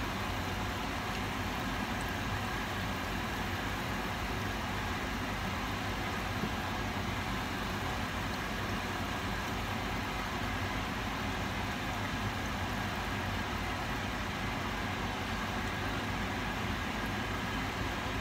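Steady hiss of hot oil frying sesame-coated binangkal dough balls in a pot, over a low, even hum.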